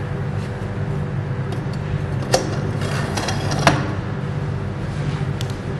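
Two sharp metallic clicks, a little over a second apart, as an aluminium wheelchair hitch bracket is set onto the wheelchair frame, with a few fainter ticks, over a steady low hum.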